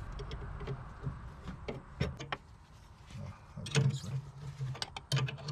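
Scattered metallic clicks and clinks of a steel wrench working the nut on an outboard's steering drag link, in short irregular groups.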